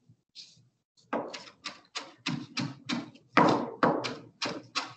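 Chef's knife chopping fresh cilantro on a cutting board: a steady run of sharp chops, about three a second, starting about a second in.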